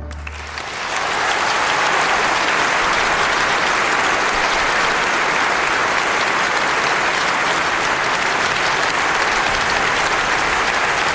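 Concert hall audience applauding, building up over the first couple of seconds and then holding steady and dense. At the very start the last low rumble of the orchestra's final chord dies away under the clapping.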